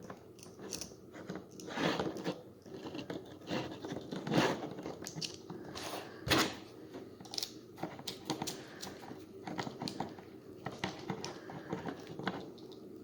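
Hands working wires into a replacement plug head at close range: irregular clicks, rustling and crinkling, with a few sharper knocks.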